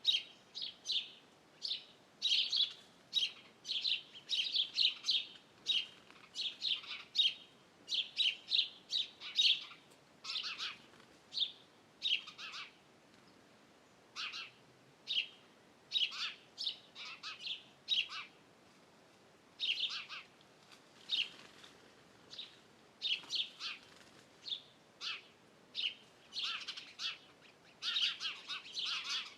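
Wild birds chirping and calling, quick runs of short high notes from several birds at once, with a few lower notes among them and short lulls in the middle.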